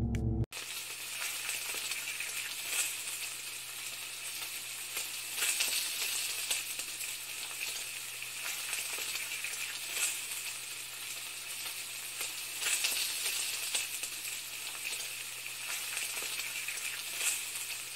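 Food frying in a hot pan: a steady sizzle with scattered crackles and pops, starting abruptly about half a second in.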